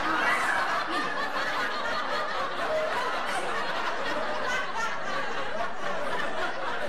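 Many people laughing and chuckling at once: a dense, steady crowd laughter of the kind used as a comedy laugh track.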